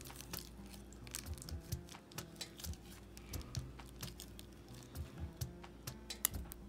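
Irregular light clicks and taps of a thin stick against a small plastic cup as candy ramen noodles are stirred, over faint background music with held notes.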